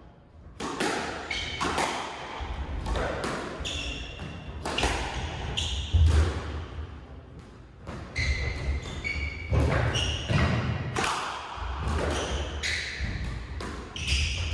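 Squash rally: sharp smacks of the ball off racket strings and the court walls about once a second, with short high squeaks of shoe soles on the wooden court floor between the shots.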